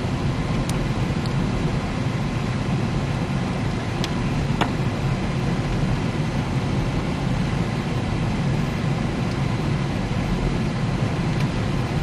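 Steady road noise of a car being driven, heard from inside the cabin: a low, even rumble of engine and tyres, with a few faint clicks.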